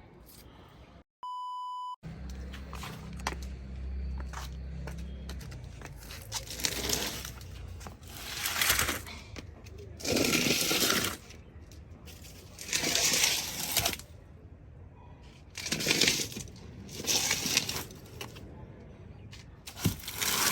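A short electronic beep about a second in, followed by repeated scraping and digging in soil, a rough rush of noise about every two to three seconds.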